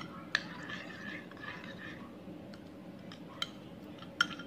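A spoon scraping diced cucumber out of a ceramic bowl into yogurt, with a few light clinks of the spoon against the bowl.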